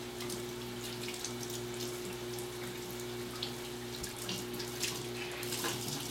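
Kitchen sink faucet running water onto a microfiber cloth held in the stream, with steady splashing as the cloth is wetted.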